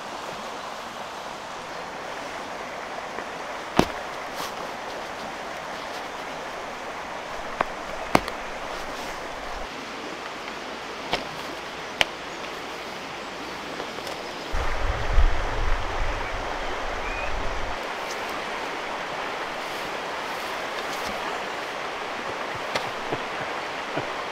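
Steady rushing of a nearby stream, with a few sharp clicks and knocks from the poles of a folding camp chair being fitted together. A low rumble and thump comes about two-thirds of the way through.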